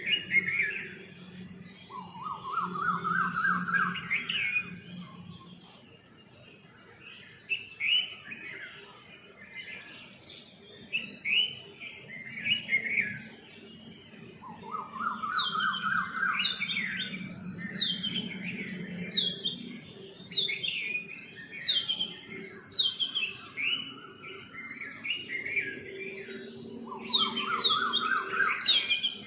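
Songbirds chirping: many short, quick falling chirps, with a rising run of rapid notes about two seconds long repeated three times (near the start, in the middle and near the end).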